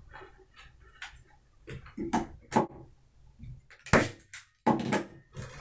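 Hand staple gun driving staples through linen canvas into a stretcher frame, with a loud sharp snap about four seconds in and another clack just before five seconds, after several lighter clicks and knocks.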